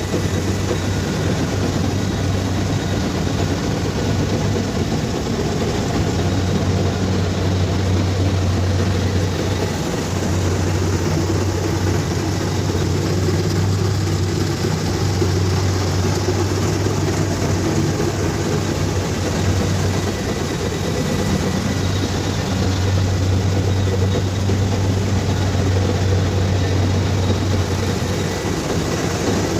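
Kubota DC-70 Plus combine harvester's diesel engine running steadily under harvesting load, a deep even hum with the machinery's mechanical noise over it.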